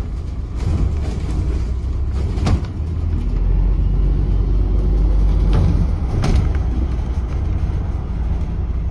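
Steady low rumble of a double-decker bus in motion, engine and road noise heard from inside the upper deck, with a couple of short, sharp rattles.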